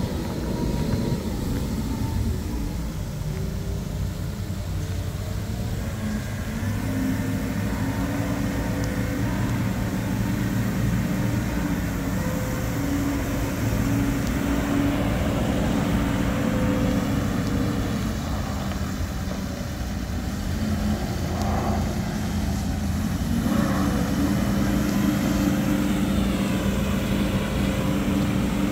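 Fiori D100 water truck's diesel engine running steadily as the truck drives, its note stepping up and down a few times, with the hiss of its water spray over it.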